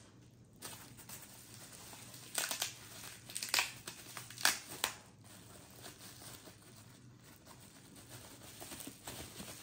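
Packaging crinkling and rustling in short, irregular bursts as an item is unwrapped by hand. The bursts are loudest in the middle few seconds.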